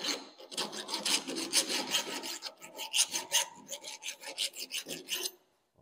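Hand file rasping back and forth over the freshly hacksawed end of a 3/4-inch low carbon steel pipe, deburring the cut inside and out. It makes rapid short strokes, about six a second, and stops a little past five seconds in.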